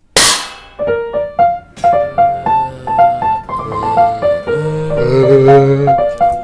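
Piano music: a sharp, loud hit right at the start, then a quick melody of single notes, with held low notes sounding under it in the second half.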